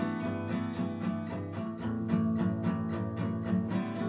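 Acoustic guitar strummed in a steady, even rhythm, chords played without singing.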